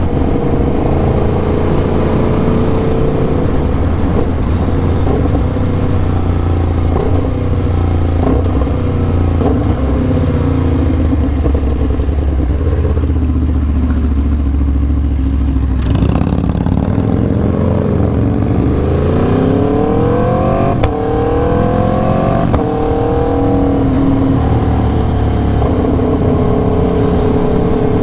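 Aprilia Tuono V4 1100 Factory's V4 engine through an SC Project CR-T exhaust, running steadily at cruise, then accelerating hard from about seventeen seconds in, its pitch climbing and breaking off at a few quick upshifts.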